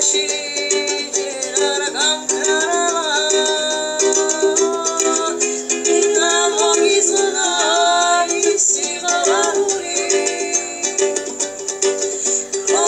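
A woman singing a slow melody in Georgian, with long held notes, over a strummed plucked-string accompaniment such as a ukulele or guitar.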